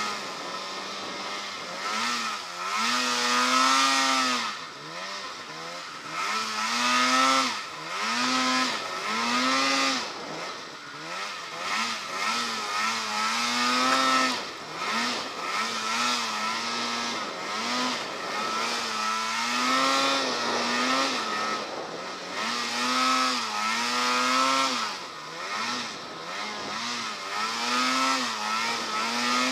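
Polaris snowmobile engine under load in deep powder, the throttle worked on and off so the revs rise and fall again and again, every second or two.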